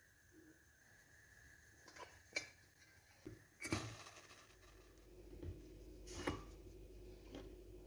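Faint kitchen handling: a few separate knocks and clinks of dishes and utensils, with a low steady hum starting about halfway through.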